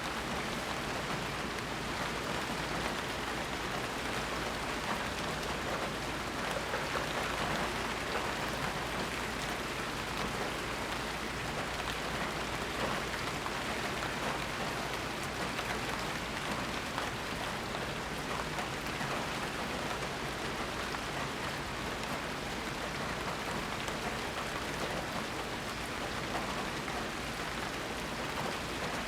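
Steady rain falling, a dense even patter of drops on surfaces with no thunder.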